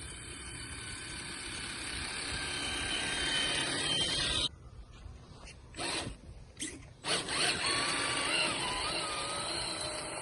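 1:10 scale Traxxas TRX4 Sport RC truck's electric motor and geared drivetrain whining, rising in pitch as it speeds up. About halfway through it cuts off abruptly. A few short bursts of throttle follow, then it runs again with a wavering pitch.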